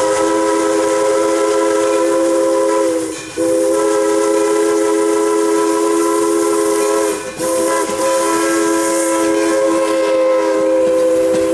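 Steam locomotive chime whistle sounding a held chord in long blasts, broken briefly about three seconds and about seven and a half seconds in, with a steady hiss beneath.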